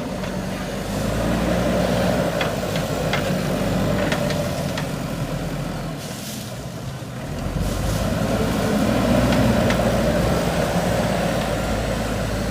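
JCB 3DX backhoe loader's diesel engine working under load. It swells about a second in and again near the middle, with a few light knocks in between.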